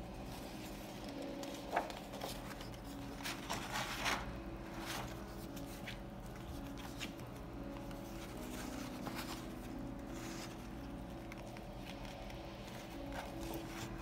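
Large glossy paper art-print pages being handled and turned: a sharp paper crackle about two seconds in, a cluster of crackles and rustles around four seconds, and softer rustles later. Underneath runs soft background music with held notes.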